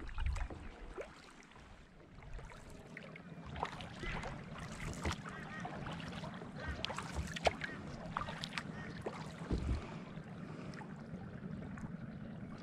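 Water splashing and dripping from a kayak paddle and lapping against the kayak's hull, with scattered small splashes and sharp knocks.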